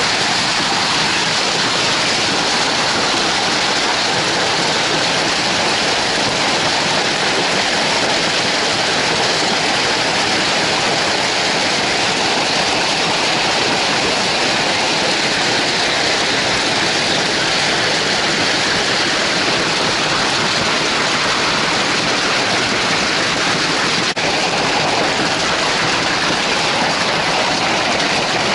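A heavy hailstorm: hail and rain falling hard, a loud, dense, unbroken noise that holds steady throughout.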